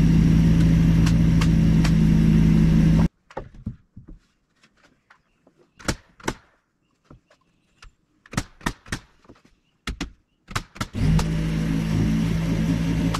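A motor running steadily at one unchanging pitch, which cuts off abruptly about three seconds in. Then come scattered sharp knocks and clicks from work on wood and metal. Near the end the motor starts up again just as abruptly.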